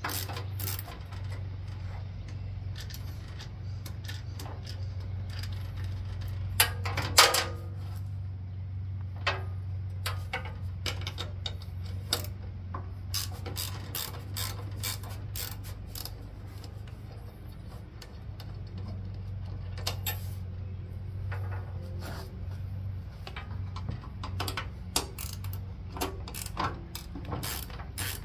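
A 9/16 ratcheting wrench clicking in runs as it loosens the seat mounting bolts under a garden tractor seat. About seven seconds in there is a louder metal clank, and a steady low hum runs underneath.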